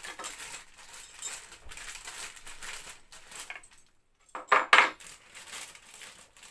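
Small metal nuts and bolts clinking and shifting inside a clear plastic bag as it is handled, with crinkling plastic; a louder clatter about four and a half seconds in.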